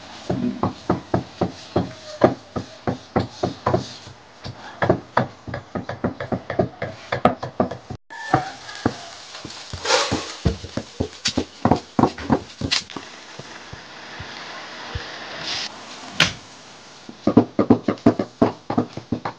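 A knife chopping meat on a wooden board: quick, repeated strokes at about three or four a second, pausing now and then and picking up again near the end.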